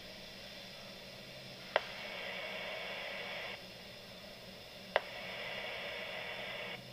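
Radio hiss during dead air on a weather radio broadcast, with a sharp click about two seconds in and another about five seconds in. After each click the hiss gets louder for about two seconds and then drops back.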